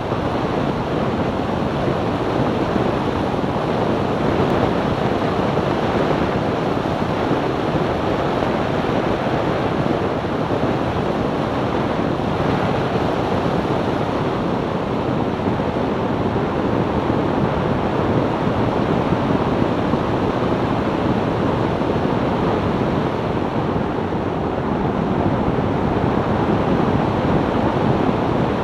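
Steady rushing wind and tyre noise of a 2002 BMW E46 330Ci driving at road speed, with no engine note standing out.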